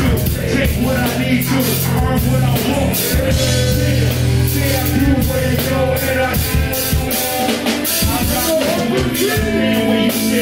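Live rock band playing, with electric guitar, a drum kit and a vocalist on a microphone.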